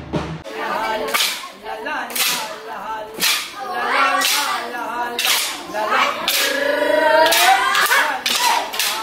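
Wooden sticks clacking together in a group stick dance, about once a second and quickening to about two strikes a second near the end, with a group of voices singing along. A low drum beat is heard in the first half second.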